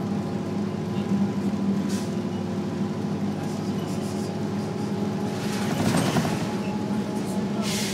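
Diesel engine of a Novabus Classic transit bus running steadily at cruising speed, heard from inside the bus as a low drone with road noise, swelling briefly about six seconds in.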